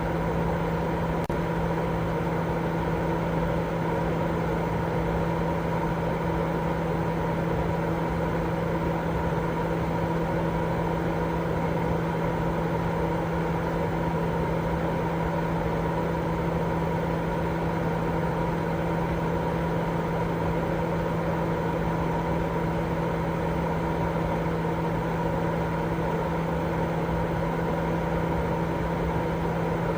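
Continuous white noise for sleep: a steady, unchanging hiss-like drone with a constant low hum running through it.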